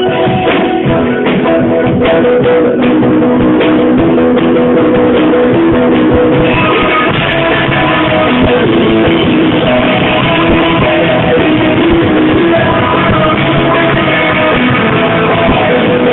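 Live rock band playing loudly, with guitars to the fore and drum hits showing in the first few seconds.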